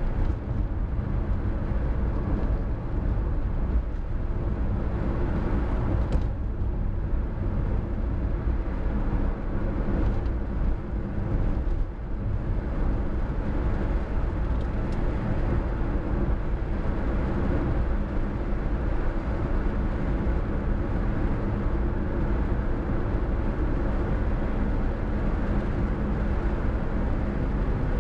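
Car driving at highway speed, a steady low rumble of road and engine noise.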